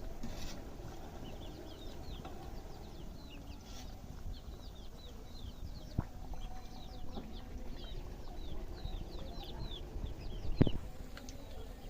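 Birds chirping in many quick, high, falling cheeps over a low clucking murmur, with a sharp knock about halfway through and a louder one near the end.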